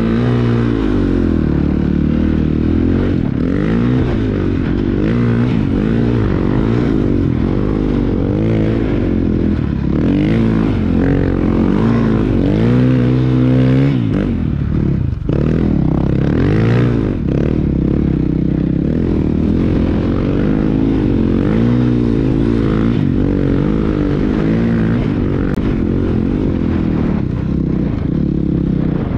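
Snow bike's 490 big-bore engine revving up and down continuously under load while riding through deep powder, with brief throttle chops about halfway through.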